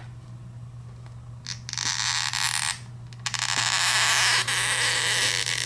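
Stretch-release adhesive strips being pulled out from under an iPhone X battery: a short peeling rasp about two seconds in, then a longer one lasting about three seconds. A steady low hum runs underneath.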